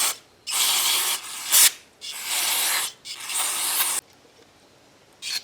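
Aerosol carburetor cleaner sprayed in three hissing bursts of about a second each into the small holes of a snowblower carburetor, blasting out gelled old fuel and gunk from the jets and passages.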